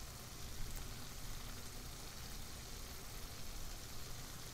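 Thick tomato gravy simmering faintly in a pan, a soft even bubbling over a low steady hum.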